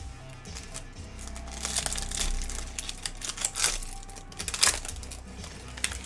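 Plastic foil wrapper of a trading-card pack being torn open and crinkled as the cards are pulled out: irregular crackling from about a second and a half in, sharpest near the end. Background music underneath.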